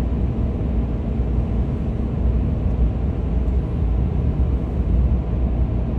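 Steady low rumble of a 4x4 on mud-terrain tyres driving on the road, heard from inside the cabin.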